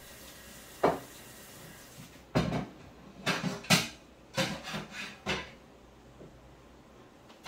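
Dishes and kitchenware knocking and clattering at a sink as they are handled, a single knock about a second in, then a quick run of clatters through the middle.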